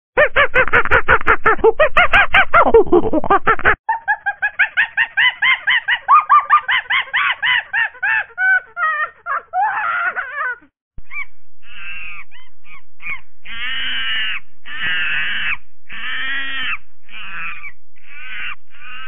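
Repeated loud, high-pitched animal calls. A dense overlapping clamour changes abruptly a few seconds in to rapid chattering calls, then to separate calls about one a second.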